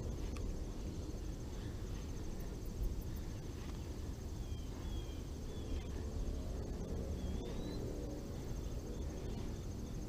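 Pond-side outdoor ambience: a steady, high, pulsing insect trill, with a few short bird chirps about four to eight seconds in, over a low rumble.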